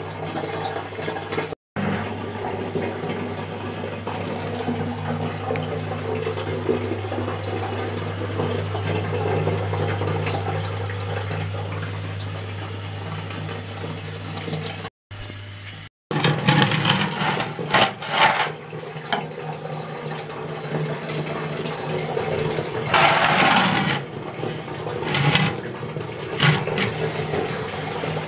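Aquarium pump used as a sump pump, running with a steady low hum while water rushes and gurgles through its PVC pipe. After about sixteen seconds the hum weakens and the water splashes and gurgles in uneven bursts.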